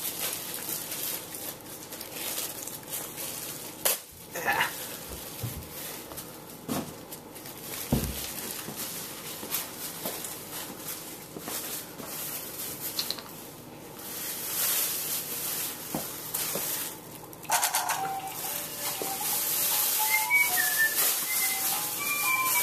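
A baby play gym toy starts playing a simple tinkling melody of short stepped notes about five seconds before the end. Before that there is only faint rustling and scattered clicks.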